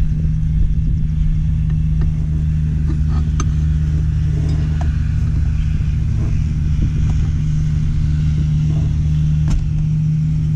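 Diesel engine of a Ford one-ton dump truck idling steadily, with a few light metallic clicks from the control linkage being handled.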